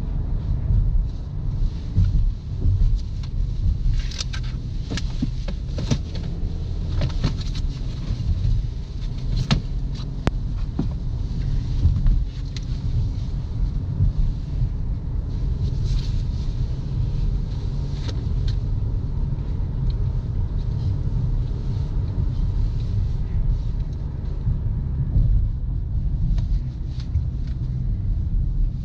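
Toyota Corolla LE four-cylinder car being driven hard on a winding road: a steady low rumble of engine and tyres, with the engine note rising and falling. A run of sharp clicks and knocks comes between about four and eleven seconds in.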